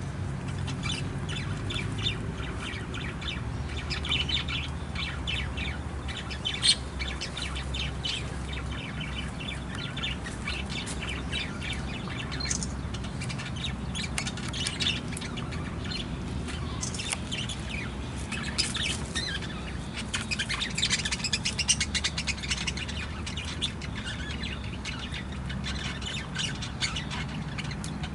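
Budgerigars chirping and chattering in an aviary: a continuous run of short, high chirps, busiest about two-thirds of the way through.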